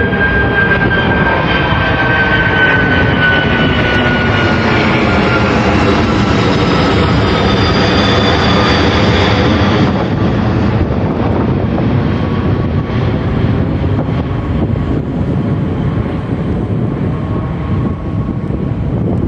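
Airliner engines passing close by: a whine that slowly falls in pitch over a heavy rumble. The whine fades about halfway through, leaving a lower rumble.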